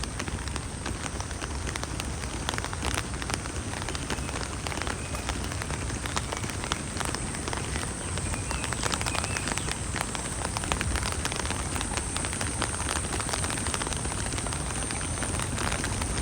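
Steady rain falling, with many sharp, close raindrop hits ticking throughout over the even hiss of the shower.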